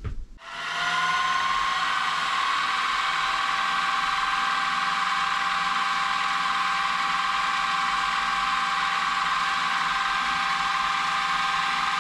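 Milling machine spindle spinning up about half a second in and then running with a steady whine while a drill is fed down to spot-drill a port hole in a model steam engine frame.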